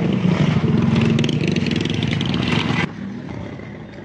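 A small motorbike-type engine running steadily close by, a rapid putter over a low drone. It cuts off abruptly about three seconds in.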